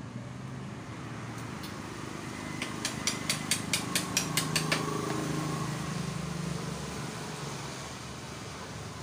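Background workshop noise: a quick run of about ten sharp taps, some five a second, over a low engine hum that swells and then fades.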